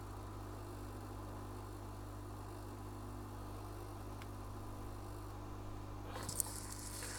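Steady low electrical hum from bench equipment, with a few light clicks and scrapes near the end.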